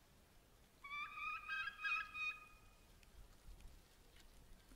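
Wild turkeys calling: a clear, faint run of pitched notes that steps up and down in pitch, starting about a second in and lasting about a second and a half.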